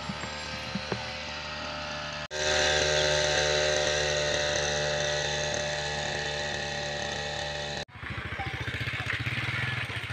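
Small two-stroke engine of a backpack power sprayer running steadily at high speed. It cuts off abruptly near the end, and a lower, pulsing tractor engine idle takes over.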